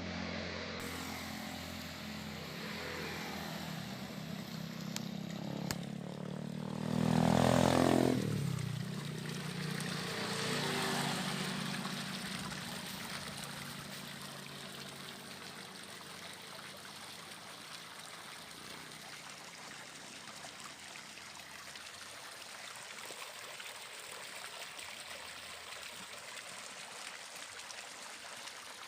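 A diesel engine driving a 6-inch water pump runs steadily and swells loudest around seven to eight seconds in. It then fades under a steady rush of pumped water pouring from the discharge.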